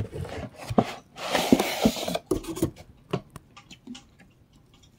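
Hands rummaging in a cardboard shipping box, pulling an item out: packaging rustling and scraping against cardboard with scattered knocks. A denser rustle comes about a second in, then only a few light ticks.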